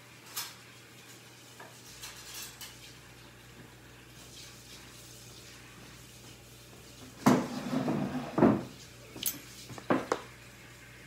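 Kitchen dishes and utensils clattering: a few faint clicks, then a loud burst of clinks and knocks about seven seconds in, and a few more sharp knocks near the end.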